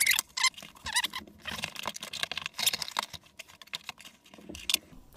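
A fabric playmat being pulled up and moved aside by hand, giving rustling and a string of light taps and clicks, busiest in the first second or so.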